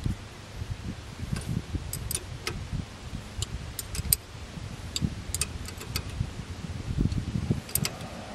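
Metal hand tools clinking: a ratchet on a long socket extension being worked on a front suspension bolt. Irregular sharp metallic clicks come singly and in small clusters, over low knocking and rustling from handling.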